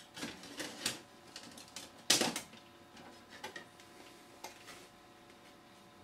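A 2008 Mac Pro's optical drive ejecting its tray at startup, triggered by holding the mouse button: a few light clicks, then a short mechanical clatter about two seconds in and a couple of softer ticks. Under it runs the faint steady hum of the computer.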